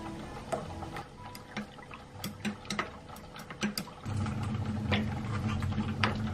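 A metal spoon clinking against a ceramic mug as a milky coffee is stirred, followed by a sharp clink near the end as ice cubes go into the mug. A steady low hum starts about four seconds in.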